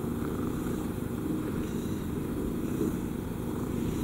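AI-generated cat purring, synthesized by MMAudio from the text prompt 'cat': a steady, low rumbling purr like a sleeping cat's.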